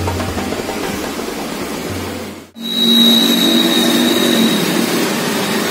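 Traffic noise with a motor running and a low steady hum. About two and a half seconds in, the sound drops out abruptly, then the traffic noise returns with a thin high whine.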